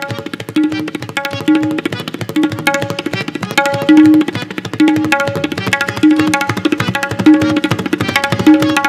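Tabla played in fast, dense strokes, a rela composition that imitates a galloping horse's gait, over a harmonium repeating a short lehra melody in held notes.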